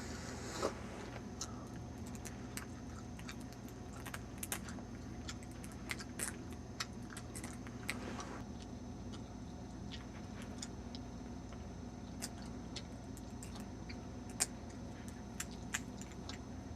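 Lock picks working in a new Master Lock padlock's keyway, with irregular small metallic clicks and ticks as the pins are raked and set.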